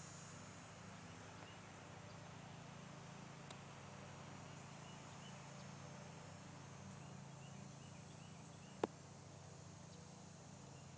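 Near silence, a quiet yard's background: a faint steady low hum with a few faint high chirps, and one sharp click about nine seconds in.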